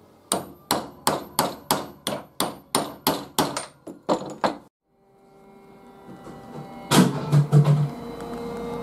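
Hammer striking a steel punch through leather on a wooden block, about a dozen sharp even blows, roughly two and a half a second, stopping abruptly after about four and a half seconds. Background music then fades in.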